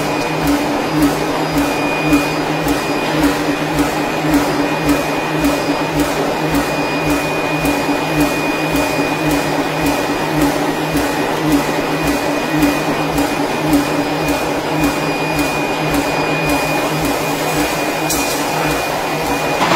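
Ring rolling machine running as it rolls out a red-hot forged metal ring: a steady mechanical drone with a thin high whine and a regular pulse about twice a second.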